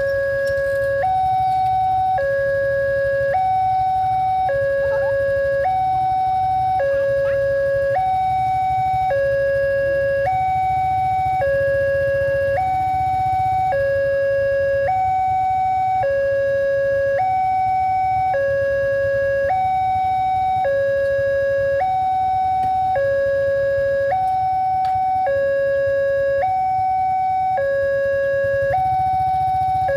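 Railroad level-crossing electronic warning alarm sounding a steady two-tone high-low pattern, switching pitch about once a second, the signal that a train is approaching and the gates are closing. A low rumble of waiting traffic runs underneath.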